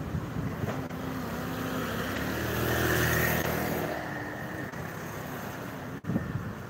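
A road vehicle drives past close, its engine and tyre noise building to a peak about three seconds in and then fading, over ongoing roadside traffic.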